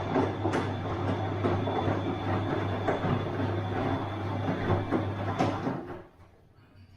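Bosch washing machine running: a steady motor hum with a thin high whine and irregular clunks and clatter from the turning drum. It falls quiet suddenly about six seconds in.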